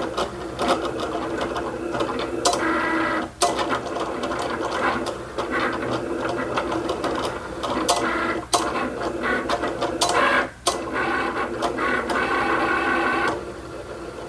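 Cricut Explorer Air 2 cutting machine running a cut: its motors whir as the blade carriage and mat move back and forth, changing pitch with each move, with clicks and a few brief pauses. It is kiss-cutting a laminated printable-vinyl sticker sheet.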